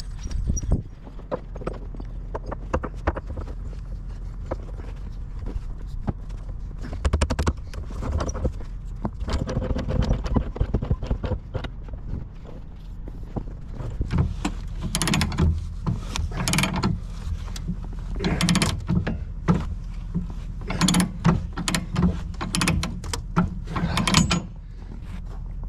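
Bobcat T595 skid steer's engine running steadily while the machine is unloaded from its trailer, with repeated sharp metal clanks and knocks that come thicker and louder in the second half.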